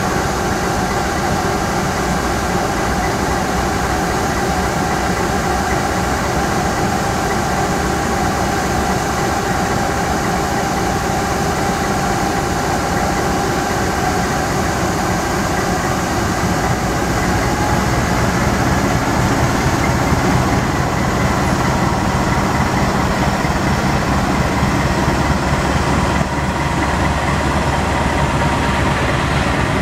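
Diesel-electric locomotive engine running steadily as the train starts to pull away, growing louder about 17 seconds in as it throttles up.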